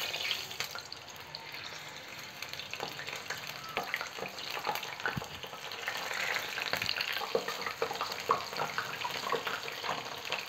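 Batter-coated ivy gourd slices deep-frying in hot oil as pieces are dropped in by hand: a steady sizzle with many small crackles and pops. It gets louder around six seconds in, when a fresh handful goes into the oil.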